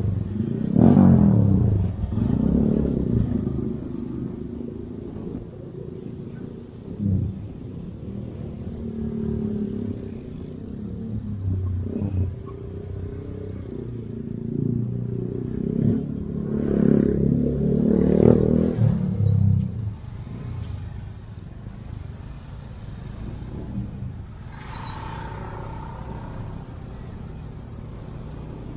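Motorbike engine revving up and easing off again and again in slow stop-and-go traffic, with cars and other motorbikes running close around it. The loudest pulls come right at the start and again about two-thirds of the way through.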